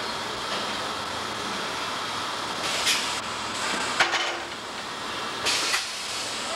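Shop hiss around a Pedrick rotary compression bending machine being readied for a bend. Two short bursts of air hiss come about three and five and a half seconds in, and a sharp metallic clack about four seconds in.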